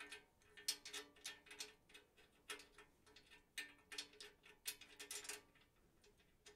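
Faint clicking of a ratchet wrench in short bursts of a few clicks each, tightening the nut on a carriage bolt.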